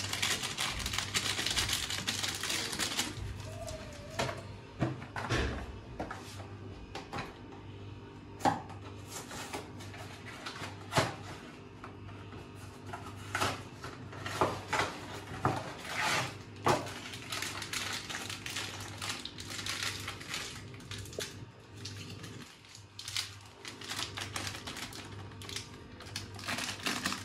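Spice packaging being handled: a cardboard box and its sachet are opened and the powder shaken out, giving crinkling, rustling and scattered light taps and clicks over a steady low hum.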